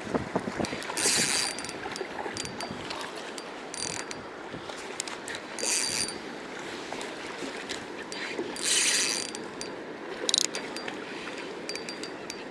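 Spinning reel being cranked to retrieve line, its gears whirring and ticking steadily, with short hissing bursts about a second, six and nine seconds in.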